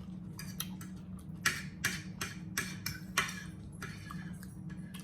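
Close-up chewing and mouth sounds: a quick series of short, sharp smacks, about two to three a second, over a steady low hum.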